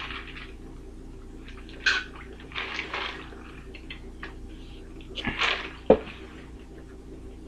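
Soda sipped through a straw from a large paper fountain-drink cup, with scattered short rustling and handling sounds over a steady low hum. A sharp knock comes about six seconds in as the cup is set back down on the table.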